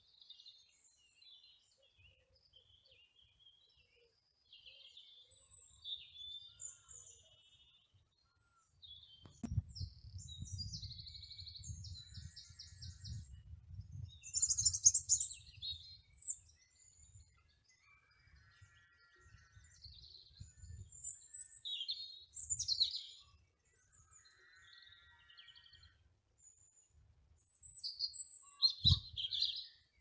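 Small birds singing, a scatter of high chirps and short trills, with a low rumble from about nine seconds in.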